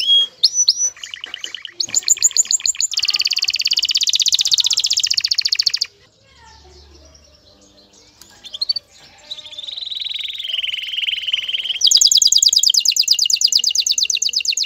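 Male domestic canary singing its breeding song: fast trilled phrases, a pause of about two seconds midway, then a louder, very rapid trill for the last few seconds.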